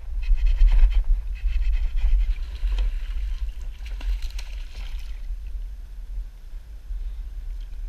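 A hooked largemouth bass splashing and thrashing at the water's surface, over a steady low rumble on the kayak-mounted camera. The crackle of splashing fades about five seconds in.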